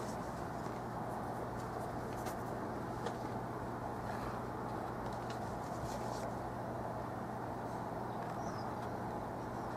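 Steady low hum and hiss of room background noise, with a few faint scratches of a paintbrush on canvas.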